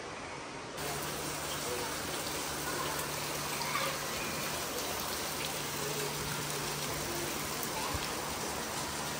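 Steady rushing noise like running water, with a low steady hum under it; it jumps louder at an abrupt cut about a second in.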